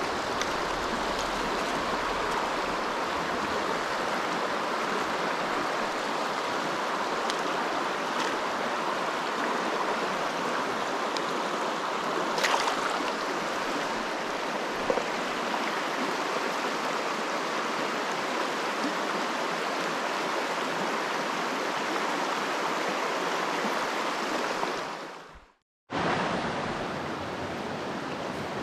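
Steady rushing of a shallow, rocky mountain river's riffles and pocket water, with a single sharp click about halfway through. Near the end the sound cuts out for a moment and comes back a little softer.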